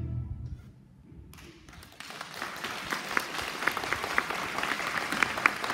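A string orchestra's last chord dies away, then after a short hush an audience starts applauding about two seconds in, building to steady clapping with some sharp single claps standing out.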